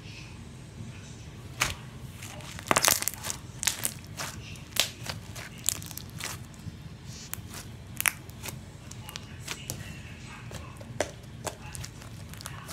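Pale slime being squeezed, folded and stretched between the hands, giving off irregular sharp pops and crackles, with a cluster of louder ones about three seconds in.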